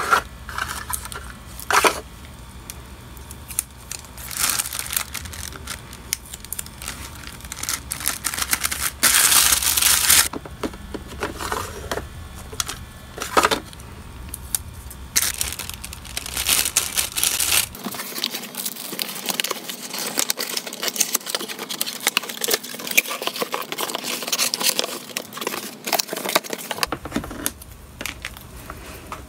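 Hands handling small packing items: plastic packaging crinkling and rustling in short bursts, with light clicks and taps of a plastic organiser drawer and small objects being set down. A longer, louder rustle comes about nine seconds in.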